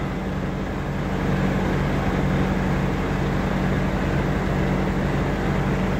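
Heavy diesel machinery running steadily: an even, low engine hum.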